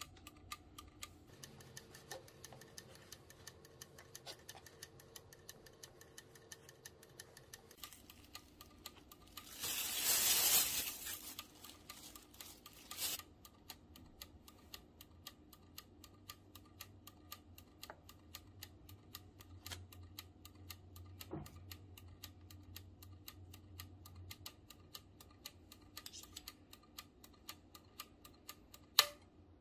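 Mechanical dial timer of an electric sandwich maker ticking steadily. About ten seconds in there is a louder rushing rustle, and there are a few sharper clicks later on.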